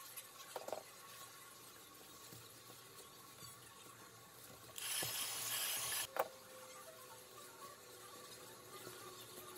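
Hands pressing and rubbing craft foam sheets, with small rustles and clicks. About halfway through there is a louder rustling hiss lasting about a second, followed by a sharp click.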